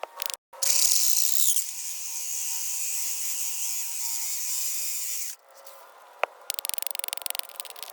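Power drill boring into a concrete retaining-wall block. It runs steadily for about five seconds, then stops, and a rapid run of clicks follows near the end.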